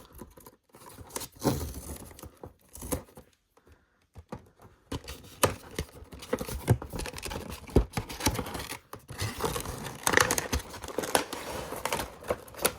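Packaging being handled and opened by hand: rustling, crinkling and scattered clicks and taps as a doll box is unpacked. The sound is sparse at first, with a quiet gap a few seconds in, then becomes busier.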